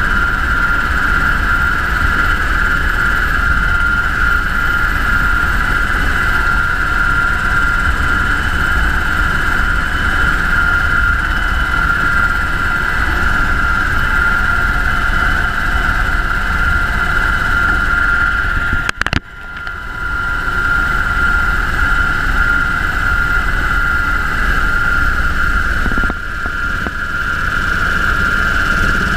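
UH-60 Black Hawk helicopter in flight: steady engine and rotor noise with a constant high whine, briefly cut off about nineteen seconds in.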